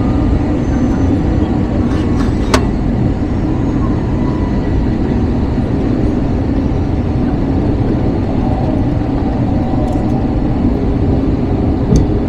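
Steady loud rumble of an Airbus A321 heard from inside the cabin, with a couple of sharp clicks about two and a half seconds in and near the end.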